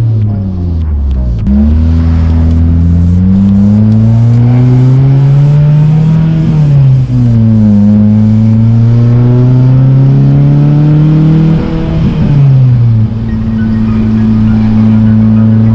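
Honda VTEC four-cylinder car engine pulling through the gears. The revs climb, drop at a shift about seven seconds in, climb again, and drop at another shift near the end before holding steady at cruise.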